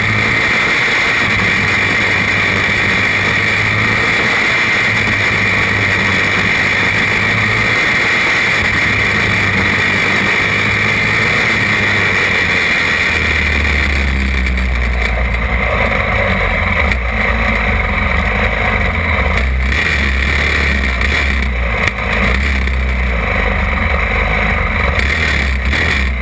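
Racing kart engine running hard at high revs, heard from on board, then settling to a lower, slower note about halfway through as the kart backs off and slows.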